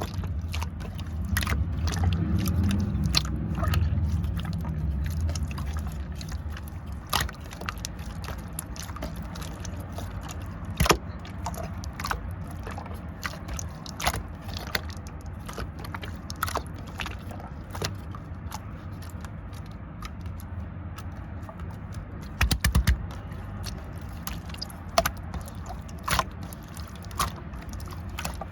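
Light-pink clear slime being pressed and stretched by hand, giving irregular sharp clicks and pops, with a quick run of clicks a little over 22 seconds in.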